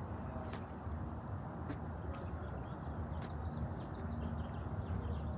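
Steady low rumble of a car idling, with a faint short high-pitched beep repeating about once a second and a few faint bird chirps.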